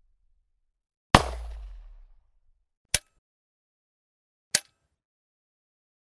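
SIG Sauer P226 9mm pistol fired once, a loud shot about a second in with a booming tail that dies away over about a second. Two short, sharp clicks follow, about a second and a half apart.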